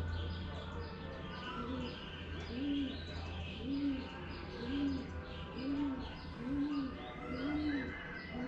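Birds calling: a low coo repeated about once a second, over fast high chirping.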